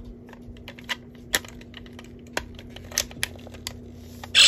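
Plastic clicks and taps as a power coin is handled and pressed into a Power Rangers Lightning Collection Master Morpher toy. Near the end, a loud, noisy electronic sound effect starts suddenly from the toy's speaker.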